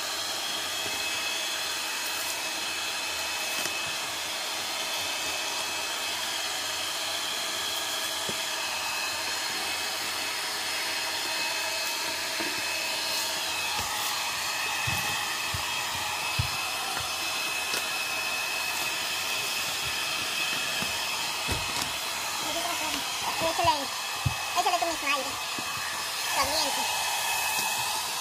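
Handheld electric heat gun blowing hot air with a steady hiss and whine, heating an old vinyl floor tile to soften its adhesive so it lifts. In the last few seconds there are short knocks and squeaks as a putty knife scrapes under the tile.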